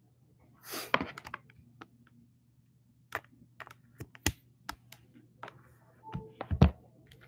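Handling noise from the recording camera being moved and adjusted: irregular clicks and taps, a short rustle about a second in, and two heavier thumps a little before the end.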